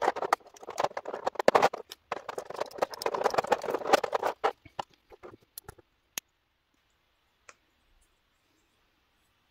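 Clear plastic blister tray and small plastic action-figure parts clicking and rattling as a hand rummages through them, a dense clatter for about four and a half seconds, then a few scattered clicks.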